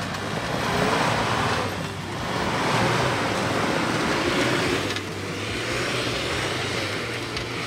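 Isuzu D-Max pickup climbing a steep, rocky dirt slope. The engine revs rise and fall while the tyres crunch and scrabble over loose stones, swelling louder three times.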